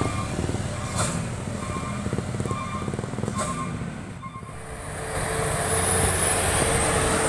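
Diesel truck engines on the road: a loaded truck's engine fades as it pulls away, with a short beep repeating about once a second. From about five seconds in, another truck comes closer and its engine grows louder, with a steady tone.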